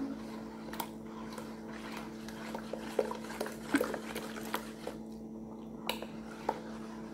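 Water poured in a thin stream into a plastic basin of soapy liquid while a plastic spoon stirs it, with scattered light clicks of the spoon against the basin. A faint steady hum runs underneath.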